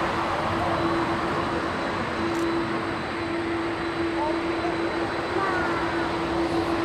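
Airbus A380-841's four Rolls-Royce Trent 970 turbofans at takeoff power during the takeoff roll: a steady rushing jet noise with a constant low tone held underneath.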